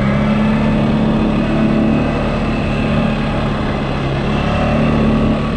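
CFMOTO ATV engine running at a steady speed while riding along a dirt road, a constant low drone with no revving.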